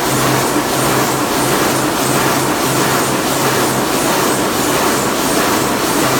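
Marble block-cutting saw running, cutting a marble block into slabs under pouring cooling water. A steady wash of splashing water and machine noise, with a low hum that pulses about twice a second.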